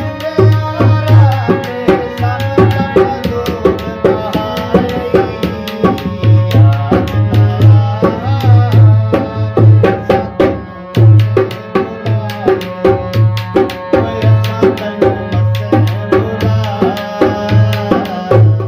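Harmonium melody over a steady hand-drum rhythm, with deep bass drum strokes recurring throughout.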